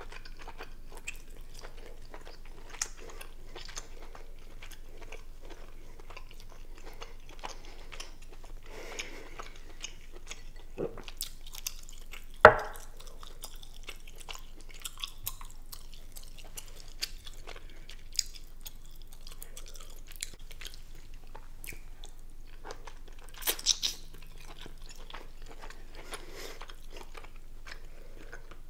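Close-miked chewing and wet mouth sounds of a person eating king crab meat in a thick seafood-boil sauce, with small smacks and clicks throughout. One sharp knock stands out about twelve seconds in, and a short cluster of clicks comes near the end.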